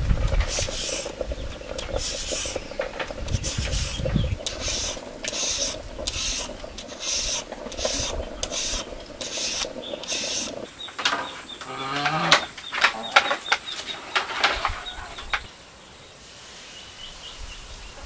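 Repeated scraping strokes, about two a second, for the first ten seconds or so, then a few scattered knocks and a short rising call.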